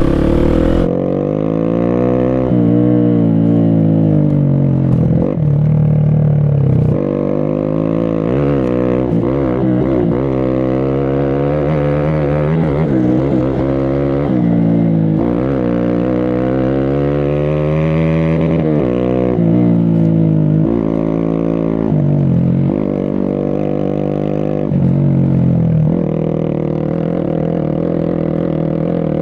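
Motorcycle engine under way on a rough trail, its revs rising and falling again every second or two as the throttle is worked and the gears change.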